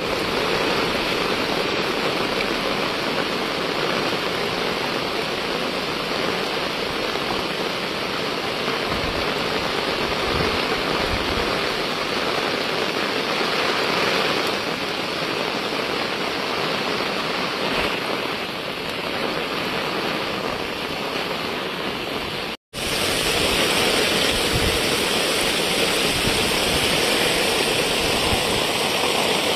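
Heavy monsoon downpour: a dense, steady hiss of rain pouring onto the road and vegetation. About three-quarters of the way through it cuts off abruptly to a slightly louder, brighter stretch of the same downpour.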